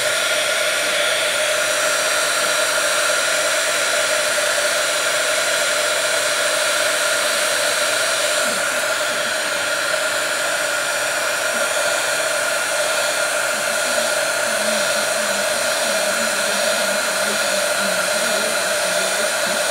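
Handheld electric blow dryer running steadily, blowing air onto the paper to dry a wet watercolour wash. An even rushing noise with a steady hum in it.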